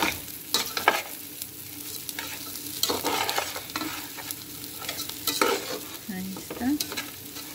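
A metal spoon stirring and scraping dry rice, dried fruit and nuts around a large nonstick pot, the rice frying in butter as it toasts. Irregular sharp scrapes and clicks of the spoon against the pan sound over the steady rustle and sizzle of the grains.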